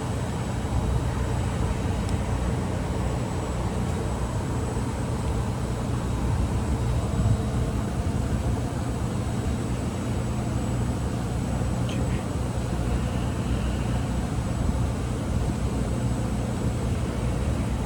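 Steady low mechanical hum with a faint high-pitched whine, unchanging throughout, with no distinct knocks or events.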